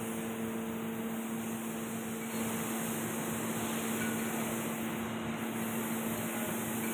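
Steady mechanical hum of a machine shop, one constant low tone with fainter tones above it over an even noise.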